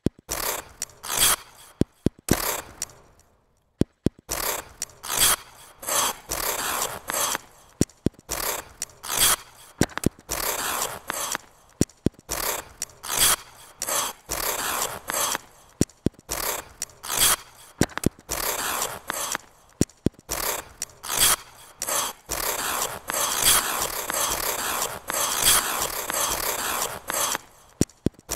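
Figure skate blades scraping and cutting into ice in short strokes, about one or two a second, many starting with a sharp click as a blade or toe pick strikes the ice, with a brief lull about three seconds in.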